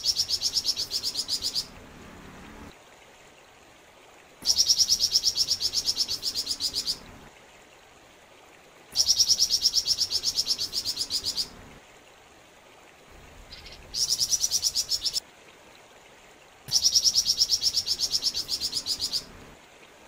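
Flamboyan songbird singing a fast trilled song: a rapid, even string of high notes, about eight a second, in bouts of about two and a half seconds separated by pauses of about two seconds. The first bout ends soon after the start and four more follow, the fourth shorter than the others.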